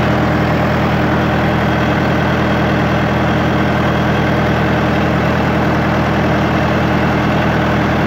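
International 125E crawler loader's engine idling steadily, freshly brought back to life after sitting for a while and running smoothly.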